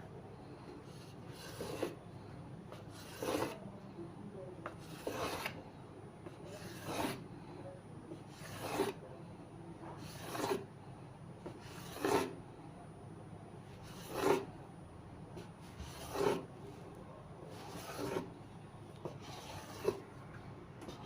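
Rolling pin rolling out stiff chin chin dough on a work surface: a rubbing stroke about every 1.8 seconds, repeated evenly.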